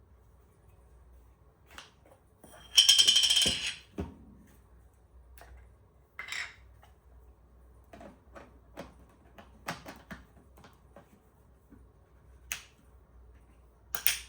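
Camera lenses and cleaning gear being handled: a loud, rattling scrape of just under a second about three seconds in, followed by scattered light clicks and knocks of small hard objects, with a sharper click near the end.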